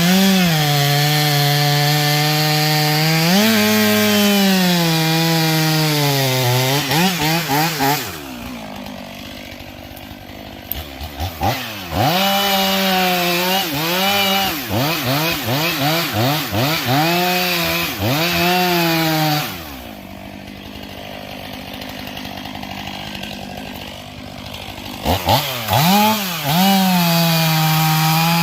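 Chainsaw cutting into a standing red oak. The engine runs at high revs and its pitch sags and swoops as the bar loads in the cut. Twice it drops to idle for a few seconds, about eight seconds in and again near twenty, and it is revved up in quick bursts in between.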